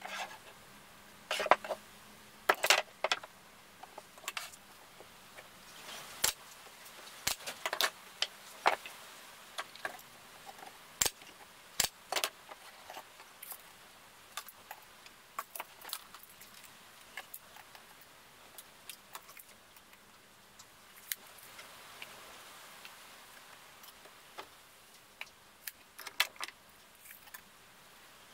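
Irregular clicks, taps and light knocks of plywood drawer boxes being handled and a steel tape measure being pulled out and laid across them, with the loudest knocks a couple of seconds in.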